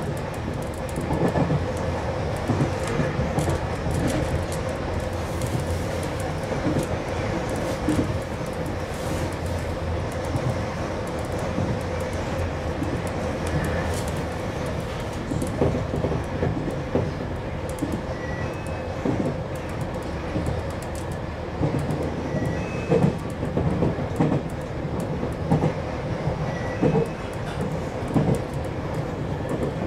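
JR Kyushu 303 series electric train running at speed, heard from the driver's cab: a continuous rumble with irregular clacks of the wheels over the rails and a steady hum.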